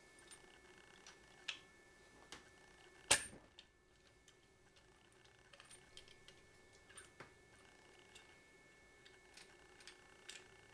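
Faint, irregular light clicks and metallic taps of hand tools and engine parts during work on the head cover, with one sharper clack about three seconds in.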